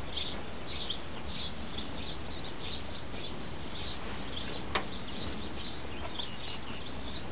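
Small birds chirping repeatedly over a steady background hiss, with one sharp click a little after the middle.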